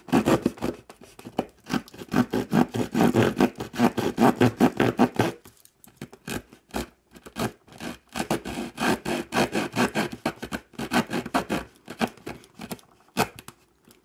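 Folding wood saw of a Victorinox Evolution Grip S17 Swiss Army knife cutting into a block of wood with quick rasping back-and-forth strokes, about three a second. The sawing stops for a couple of seconds around the middle, then starts again and trails off into a few light scrapes near the end.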